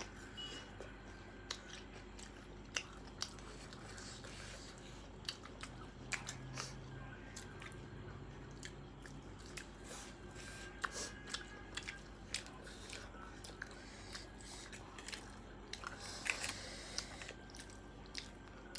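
Close-up chewing and crunching of snack food, with irregular sharp clicks and snaps of biting.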